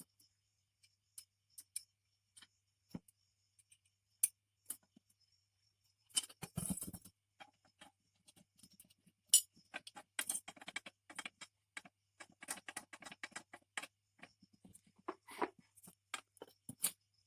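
Scattered clicks and light metallic clinks of small parts and tools being handled. They grow into a busier stretch of rattling and tapping from about six seconds in.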